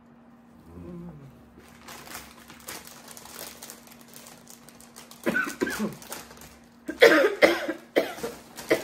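A woman coughing in fits, a few coughs about five seconds in and a louder run of harder coughs about two seconds later, which she puts down to lettuce tickling her throat. A plastic chip bag crinkles as it is handled.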